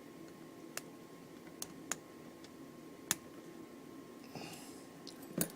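Scattered sharp metal clicks from tools working at the core detents of a Master Lock Magnum round-body padlock, about five in all with the loudest just before the end, and a brief scraping rustle a little after the middle.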